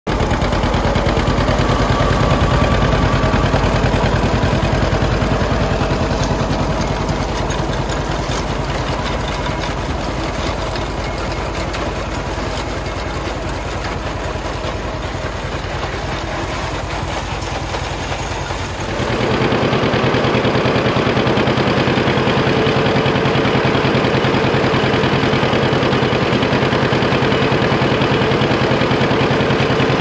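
John Deere 50 tractor's two-cylinder engine running steadily under load while driving a PTO-driven John Deere wheat binder, with the binder's machinery clattering along. The sound changes abruptly about two-thirds of the way through.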